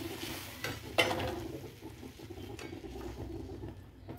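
Steel ladle stirring watery lentil dal in a metal pan, clinking sharply against the pan about a second in, with a softer knock just before it and another later.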